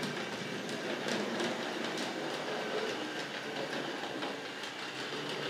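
Tri-ang 00 scale model tank locomotive running on the track: a steady motor and wheel rumble with irregular sharp clicks as the wheels pass over rail joints and points.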